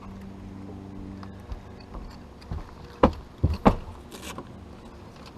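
Bass boat sounds: a steady low motor hum that dies away about a second and a half in, then a quick cluster of sharp knocks on the boat about three seconds in, followed by a brief hiss.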